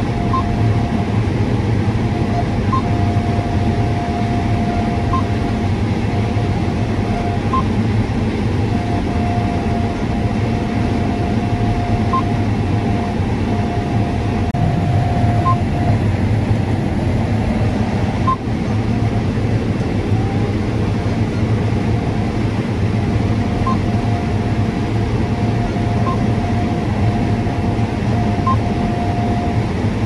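John Deere S660 combine harvester running under load as it harvests standing corn, heard from inside the cab: a steady low drone with a higher whine that drops in and out, and a short faint beep every two to three seconds.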